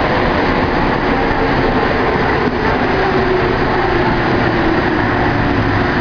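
MP-82 rubber-tyred metro train running steadily through a tunnel, its French chopper traction control giving faint whining tones that drift in pitch over the running noise.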